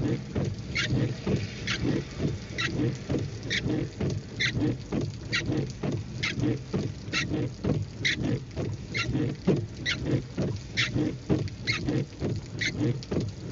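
Rain pattering on a car parked with its wipers running, with a sharp tick repeating evenly about once a second.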